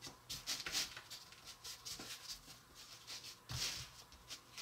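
Hands pressing and rubbing small pieces of soft dough together on a mat: a few soft brushing, rubbing strokes, the clearest about three and a half seconds in.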